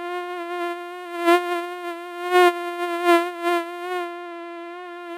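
Housefly buzzing in a steady, high drone whose pitch wavers slightly, swelling louder in brief passes several times in the first three seconds or so.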